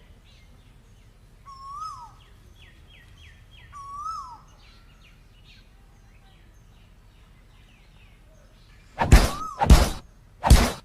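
Asian koel calling: whistled notes that rise and then fall, with faint quick chirps between them. Near the end come three loud, harsh bursts.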